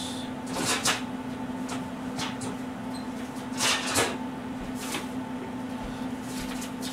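Garlic cloves cooking gently in a frying pan over a low gas flame, against a steady hum. A few short knocks or clatters come through, the loudest about a second in and near the middle.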